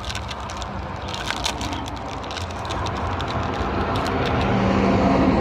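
Foil wrapper of a baseball card pack crinkling and tearing open, with sharp crackles in the first second or so. A passing car then grows steadily louder toward the end.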